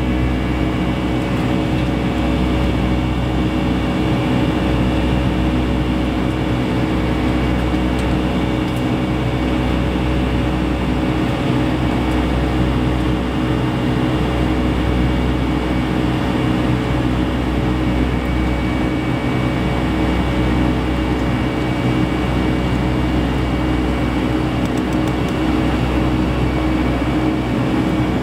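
Boeing 757-200 cabin noise during the climb after takeoff: a steady drone of the jet engines and rushing air, with a low rumble under several steady hum tones, unchanging throughout.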